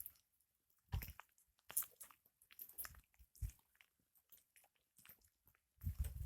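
Apple-wood campfire crackling: faint, irregular pops and snaps with quiet gaps between them, and a few short low thumps about a second in and near the end.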